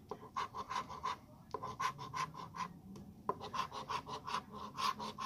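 Coin scratching the latex coating off a Bonus Money lottery scratch-off ticket in quick back-and-forth strokes, about five a second, with two short pauses.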